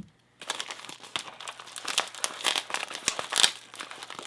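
A shipping package being cut and torn open by hand: crinkling and tearing packaging with dense, irregular crackles, starting after a brief moment of silence.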